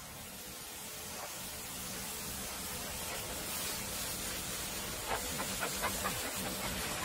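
High-pressure washer wand spraying a steady hissing jet of water onto a car's painted body panels, blasting off barn dust. The spray spatters louder and rougher about five seconds in.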